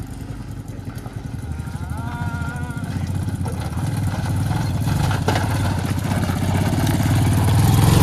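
Motorcycle engine labouring up a steep hill road, its low pulsing beat growing gradually louder: the bike is struggling on the climb.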